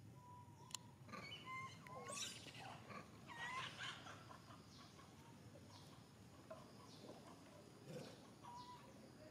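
Faint, high-pitched animal chirps and squeaks, several in the first four seconds and a short one near the end, with a single sharp click about a second in.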